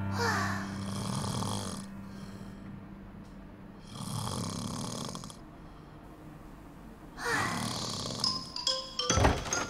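A cartoon girl's exaggerated snoring: three long snores about three seconds apart. Near the end a few plinked music notes and a low thump come in.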